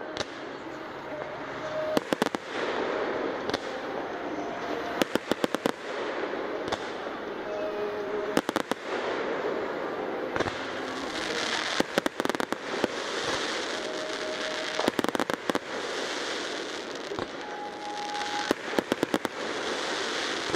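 Aerial fireworks bursting, with sharp bangs and crackles coming in quick clusters several times over.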